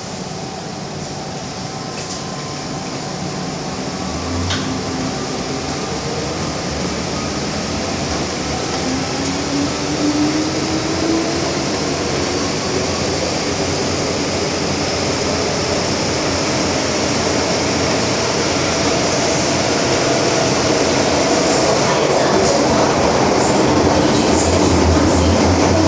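MTR M-Train electric multiple unit pulling away and accelerating, heard from inside the car: the traction motors give a whine that rises in pitch while the rumble of wheels on rail grows steadily louder. A few sharp ticks come near the end.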